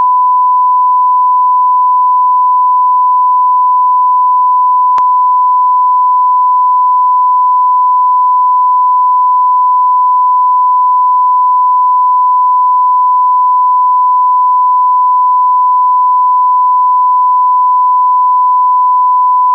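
Broadcast line-up reference tone: a single steady 1 kHz sine tone, run with colour bars at the head of a programme tape to set audio levels. It holds unchanged and cuts off near the end.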